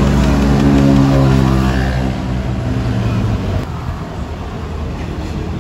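A motor vehicle engine running, its pitch slowly falling, until it cuts off abruptly about three and a half seconds in; a mixed background din follows.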